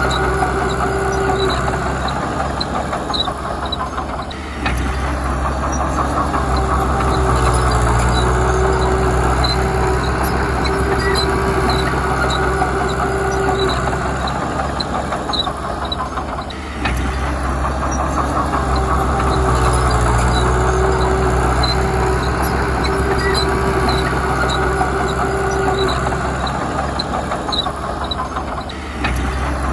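Heavy diesel earthmoving machinery running steadily, with a quick, regular light ticking or clatter over the engine. The sound dips briefly twice, about 4 and 17 seconds in, and again near the end.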